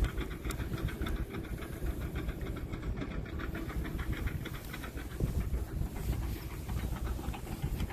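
Low rumble of wind on the microphone, with a fast run of faint ticks over it.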